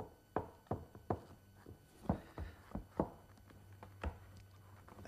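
Hickory handle being tapped home into a glued bubinga croquet mallet head: a run of sharp wooden knocks, about three a second, that slows and ends with a single knock about four seconds in.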